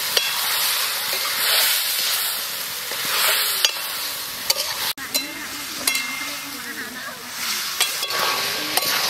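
Chicken pieces and spice paste sizzling in hot oil in a metal kadai while a metal spatula stirs and scrapes them, with repeated clicks of the spatula against the pan.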